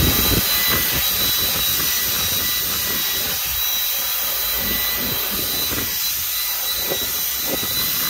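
Dyson V10 Animal cordless stick vacuum running with its crevice tool on car carpet: a steady rush of suction air with a high, even motor whine.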